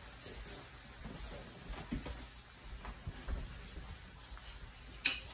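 Hot bacon fat and clarified butter sizzling and crackling faintly in a cast iron skillet, with flour just added to start a roux. A single sharp click about five seconds in.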